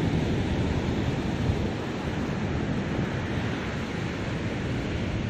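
Surf washing onto a sandy beach in a steady rush, with wind buffeting the microphone.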